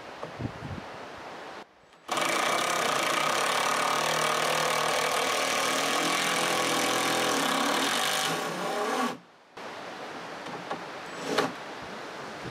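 Handheld power drill running at a steady speed for about seven seconds, working the bottom board of a porch railing, easing slightly just before it stops.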